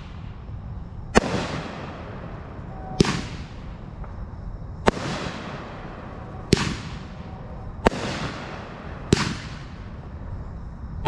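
Firehawk 'Armed and Dangerous' 13-shot 500-gram fireworks cake firing: six sharp bangs of shells bursting, spaced about one and a half to two seconds apart, each followed by a short fading tail.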